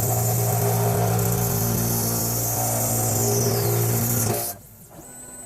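CNC machine running loud and steady while machining an enclosure, with a strong low hum and a bright hiss, then cutting off sharply about four and a half seconds in and leaving a thin high whine.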